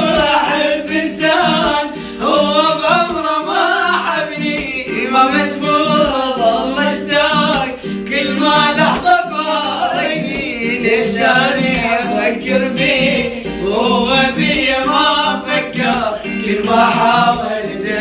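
A voice singing an Iraqi song in long, ornamented phrases that waver up and down in pitch, with a little instrumental backing underneath.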